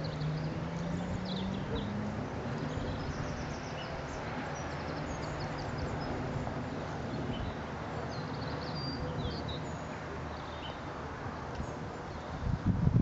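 Outdoor ambience: small birds chirping intermittently over a steady rush of wind noise. A low drone rises slightly over the first two seconds, and louder low gusts buffet the microphone near the end.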